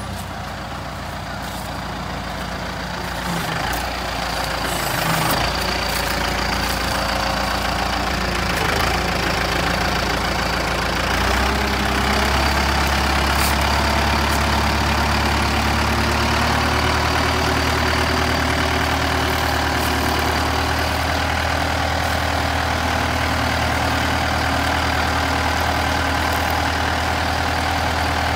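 Kubota tractor's diesel engine running, with revs rising about four seconds in and again about eleven seconds in, then holding steady.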